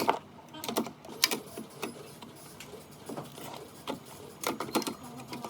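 Irregular clicks and knocks of hard parts and tools being handled, with a short group of close clicks around the middle and near the end.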